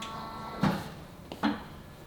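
Two dull knocks, a little under a second apart, like something hard being set down or shut.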